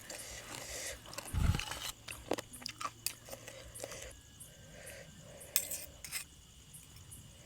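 Close-up chewing, biting and crunching of a spicy Thai yum salad with chicken feet, with wet mouth clicks and a louder bite about one and a half seconds in. Crickets chirp steadily in the background.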